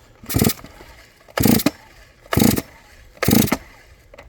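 660-class two-stroke chainsaw being pull-started cold on choke: four quick rips of the starter cord about a second apart, the engine turning over without firing.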